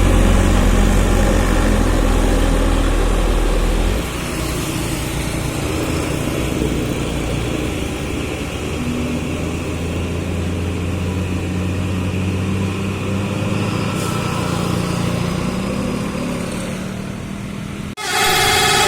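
Bus engine running close by, with a heavy low rumble for the first four seconds that then eases to a steadier hum. Near the end the sound cuts suddenly and a multi-tone 'telolet' bus horn starts playing its stepped melody.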